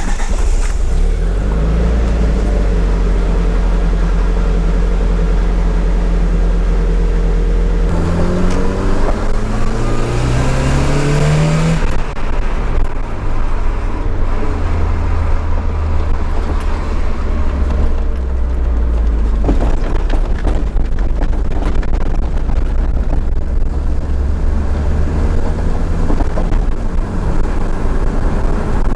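Nissan 200SX S13's CA18DET turbocharged 1.8-litre four-cylinder running steadily for about eight seconds. It then rises in pitch as the car pulls away, drops suddenly about twelve seconds in as he shifts gear, and carries on under steady engine and road noise heard from inside the cabin.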